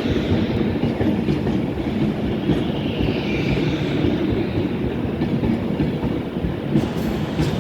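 Class 390 Pendolino electric train rolling slowly into the platform, its wheels clattering over rail joints with a steady rumble. A faint wheel squeal rises and falls twice, and there are a few sharp clicks near the end.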